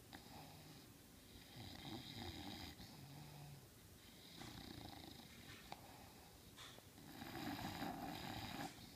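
English bulldog snoring in its sleep: about three snores a few seconds apart, the last one the loudest, near the end.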